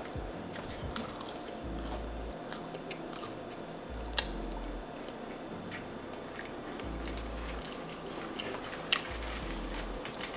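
Chewing and biting into sauced fried chicken nuggets, with soft crunches and a couple of sharper crunches about four and nine seconds in.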